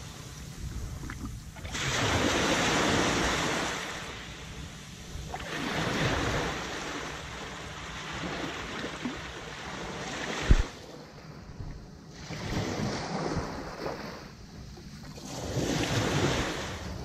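Small waves breaking and washing up over wet sand, the surf swelling and fading every few seconds, with wind on the microphone and a single sharp thump about ten seconds in.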